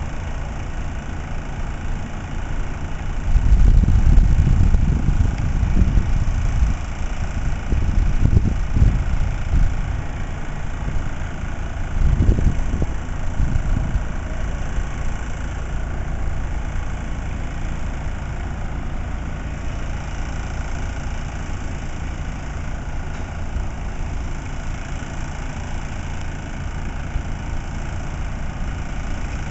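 Steady low engine hum of machinery running, with louder low rumbling swells from about three to ten seconds in and again around twelve seconds.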